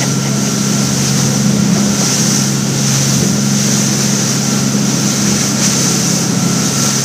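Motorboat engine running steadily with a constant low hum while underway, under a rushing of wind and water.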